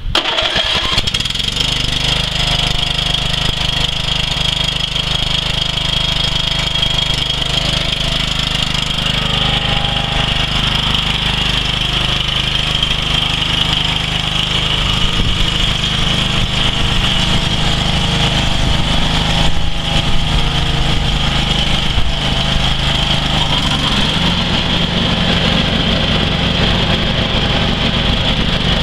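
Scotts 17 HP lawn tractor engine catching at the very start, then running steadily under a constant high whine while the tractor is driven. Its note rises a little late on.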